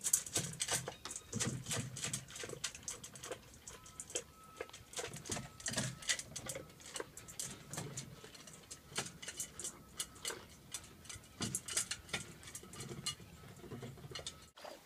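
Black Labrador eating dry kibble from a stainless steel bowl: rapid, irregular crunching and clicking as it chews and noses the kibble around the metal bowl.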